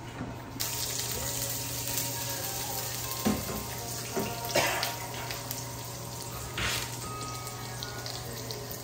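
Sliced shallots and bay leaves frying in oil in a pan on a gas stove: a steady sizzle, with three short knocks of the pan or utensil.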